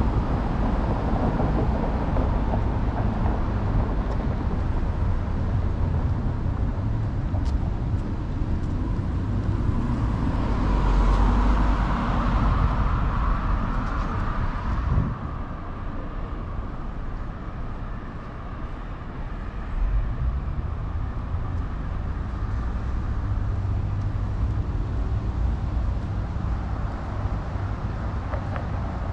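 Road traffic on a busy city street: a steady rumble of passing cars, with one louder vehicle going by about ten to fifteen seconds in that drops away abruptly.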